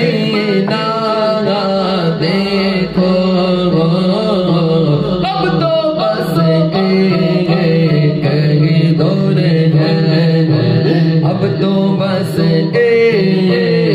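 A man singing a naat unaccompanied in long, drawn-out phrases, his voice run through a Boss DD-6 digital delay pedal so that it echoes.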